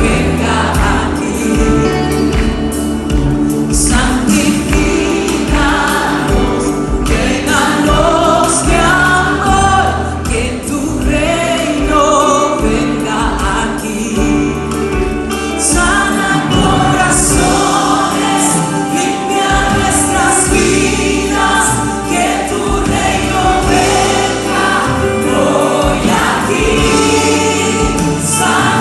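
Live Christian worship music: women singing a Spanish-language worship song into microphones over a band with bass and drums, the singing continuous.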